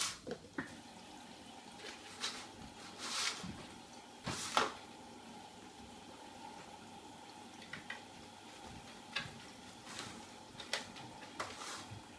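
A kitten playing around a plastic laundry basket on a wooden floor: scattered light taps, scrapes and knocks of paws and plastic, a second or more apart, the loudest right at the start and again about four and a half seconds in.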